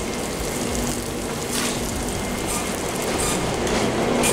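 Food sizzling on a flat-top griddle over a steady kitchen hum, with brief scrapes of a metal spatula about a second and a half in and again near three seconds.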